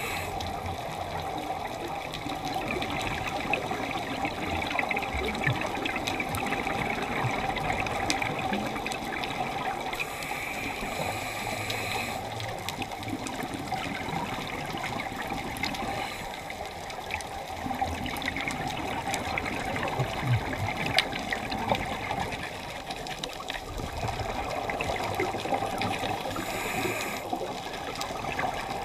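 Underwater sound picked up by a dive camera in its housing: a steady watery hiss scattered with many small clicks and crackles. A brief higher hiss comes twice, about ten seconds in and again near the end.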